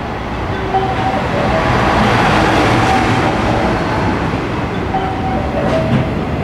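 Express freight train passing through a station at speed: a dense, steady rushing of wheels on rail as the locomotive and then a long string of container wagons go by. It is loudest about two to three seconds in, as the locomotive passes.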